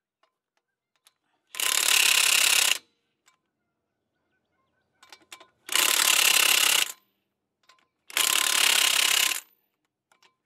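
DeWalt cordless impact wrench hammering lug nuts tight through a torque stick, in three bursts of about a second each. The torque stick stops the tightening at a set torque of about 100 foot-pounds.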